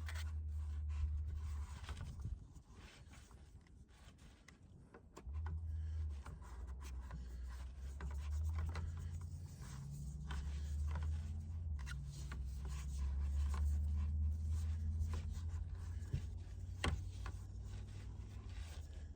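Rubbing and scraping handling noises with scattered clicks, from someone working in a tight crawl space, over a low rumble that drops away for a few seconds early on and then returns.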